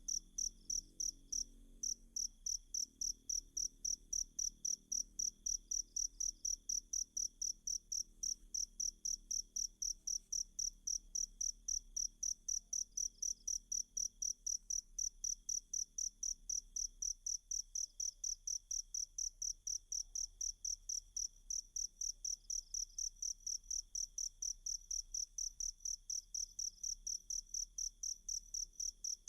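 Cricket chirping in a fast, even, high-pitched rhythm, repeated without pause, used as a tutoring sound for songbirds to copy.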